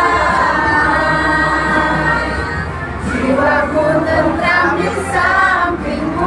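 A crowd of voices singing a song together.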